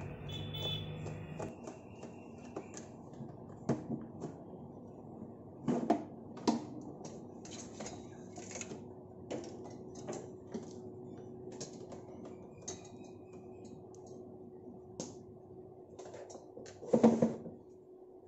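Scattered plastic clicks and knocks as the back cover of an RO water purifier cabinet is worked loose and taken off, with a louder clatter about six seconds in and again near the end.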